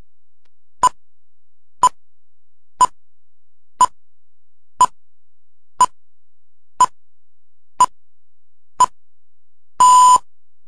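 Film-leader countdown beeps: nine short, identical beeps about a second apart, then one longer beep of the same pitch near the end.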